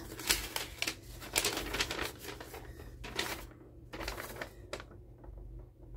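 Paper sewing pattern pieces rustling and crinkling as they are unfolded and handled, in irregular bursts with short pauses.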